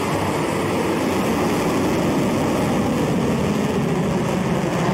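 Rocket engines during launch: a steady, dense rumble as the rocket climbs away from the pad just after liftoff, growing slightly louder.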